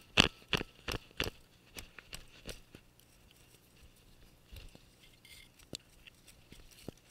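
Footsteps crunching through dry leaf litter, opening with a quick run of five loud sharp cracks in the first second and a half, then softer crunches and scattered ticks.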